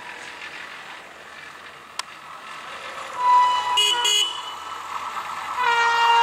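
Electric locomotive's horn sounding as the train approaches: a brief toot about three seconds in, two short blasts around four seconds, then a long, loud blast starting near the end.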